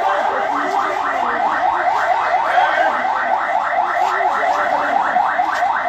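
Electronic siren in its fast yelp mode: a steady run of quick rising sweeps, about five a second, with crowd voices faintly beneath.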